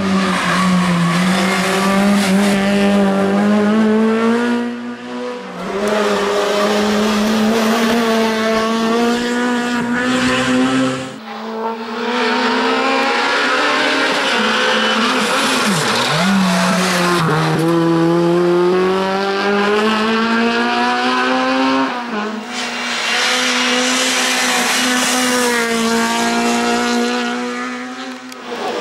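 Honda Civic race car's engine revving hard under full throttle on a hill climb, its pitch climbing through each gear and dropping at each upshift. It comes in several separate passes that break off abruptly.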